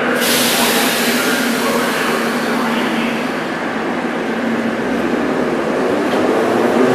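Metrowagonmash 81-717.5A/714.5A metro train pulling out along the platform, with a sudden hiss right at the start and its running noise growing louder near the end as it gathers speed.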